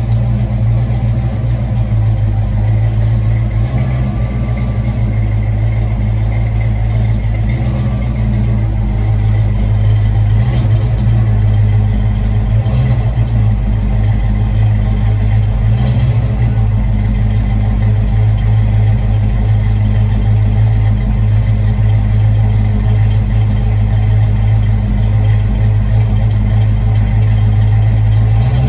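Fox-body Ford Mustang's engine idling steadily through its exhaust, warming up after a cold start.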